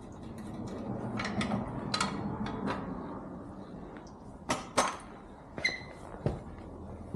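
Metal clinks and knocks of hand tools and parts on a motorcycle's rear axle as the wheel is being taken off, with two sharp clanks about halfway through and one knock that rings briefly like struck steel.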